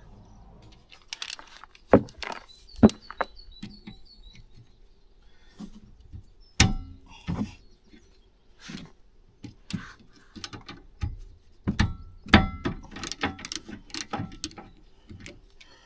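Metal hand tools clinking and knocking against each other as they are handled and sorted, in an irregular series of sharp knocks, some with a short metallic ring. The loudest come about two and three seconds in.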